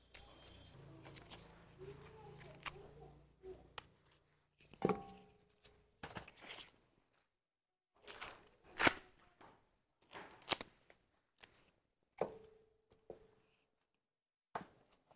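Ears of sweet corn being husked by hand, the husks tearing and rustling, with a series of sharp knocks as ears are put into a metal pot. One knock near the end leaves a brief ring from the pot.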